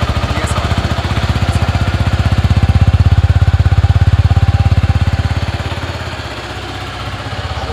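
Suzuki Gixxer SF 250's single-cylinder, oil-cooled 250 cc engine running at idle in a fast, even beat, growing louder for a few seconds in the middle and then easing back.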